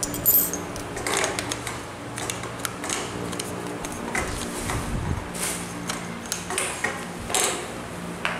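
Plastic loop handle and aluminium shaft tube of a pole saw clicking and knocking as they are handled and slid together by hand, irregular small taps over a steady low hum.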